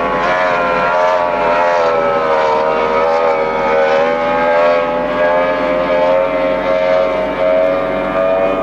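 Outboard motors of racing powerboats running at high speed as the boats pass close by, a steady engine note made of several tones. The pitch dips slightly about half a second in.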